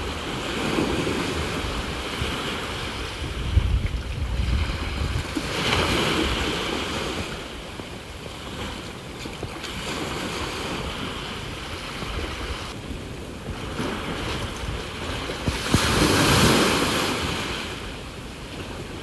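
Sea waves breaking and washing onto the shore, swelling into loud surges about six seconds in and again near the end. Gusts of wind rumble on the microphone, most around four seconds in.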